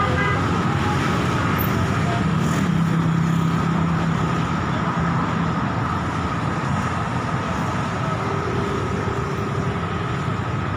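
Steady roadside traffic noise from cars and motorcycles passing on a busy road. One engine's low hum stands out for a few seconds, starting about two and a half seconds in.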